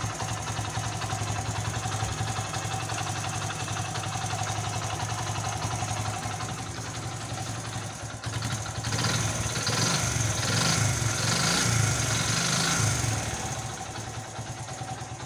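Honda CD 70's single-cylinder four-stroke engine running at a steady idle, then revved in a series of quick throttle blips from about nine seconds in until about thirteen seconds, after which it drops back toward idle.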